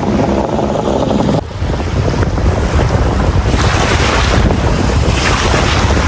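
Wind buffeting the microphone aboard a moving boat, over a low rumble and rushing water. It cuts in abruptly about a second and a half in, and the hiss swells twice in the second half.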